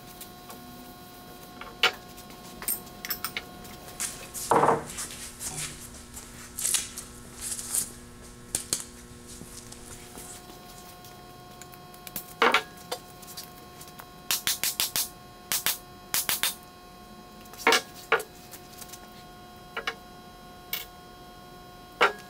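Hand-handling noises from a wooden hammer handle and a metal ball peen hammer head on a wooden workbench: scattered sharp knocks and clicks, a stretch of rag rubbing on the handle, and a quick run of taps past the middle.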